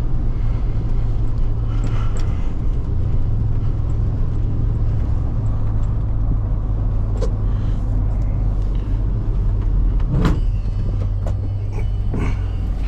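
Vehicle engine running steadily while driving, a constant low drone, with a couple of brief knocks near the end.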